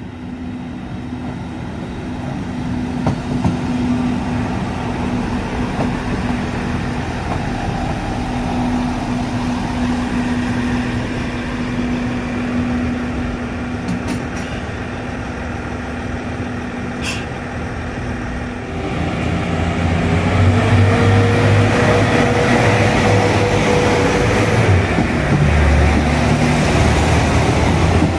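Diesel railcar rolling into the station and idling with a steady low hum. About 19 s in its engine throttles up, louder and deeper, with a whine that rises in pitch.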